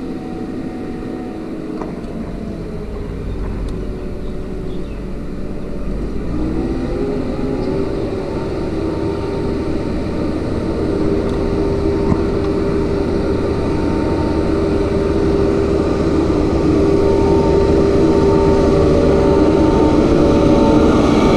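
Diesel engine of a backhoe loader coming closer, getting steadily louder as it draws near and passes. Its pitch dips slightly about two seconds in, then rises about six seconds in and holds.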